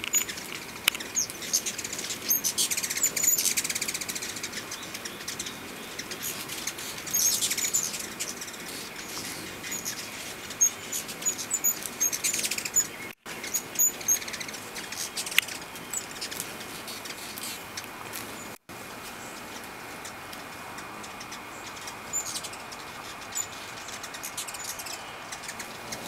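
Many hummingbirds whirring around, their wings humming loudest in passes of a second or two as birds dart close, with many short, very high chirps between.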